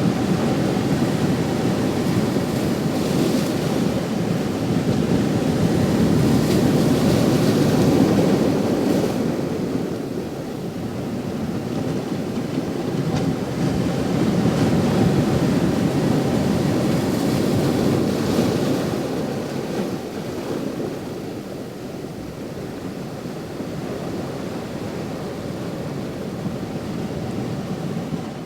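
Ocean surf washing in steady noise that swells in two big surges and then eases off.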